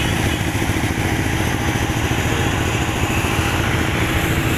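An engine running steadily at constant speed, an even low rumble with no revving.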